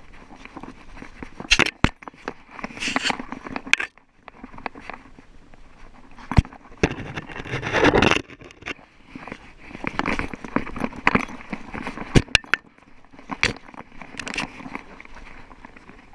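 A small dog moving and poking about over dry sticks and loose rocks, heard very close up: irregular crackling of twigs, scrapes and sharp clicks, with a longer scraping rush about halfway through as fur and gear rub against the microphone.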